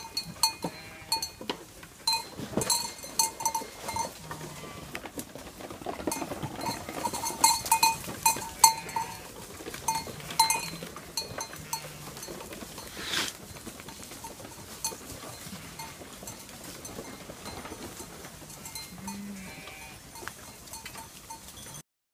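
Flock of sheep on the move along a wooden boardwalk: bells clanking, many hooves clicking on the planks, and a few short low bleats.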